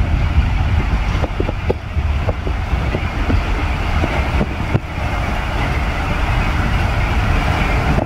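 Inner tube riding down an enclosed tube water slide: a steady rush and rumble of water and tube against the slide walls, with a few scattered knocks, heard muffled through a waterproof phone pouch.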